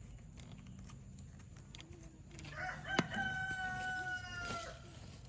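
A rooster crowing once, a call of about two seconds that drops in pitch at the end. A sharp click sounds just as the crow begins.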